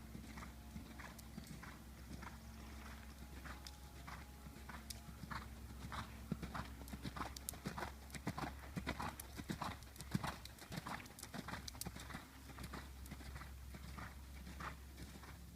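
Horse cantering: a run of repeated hoofbeats striking the ground in an uneven, rolling rhythm.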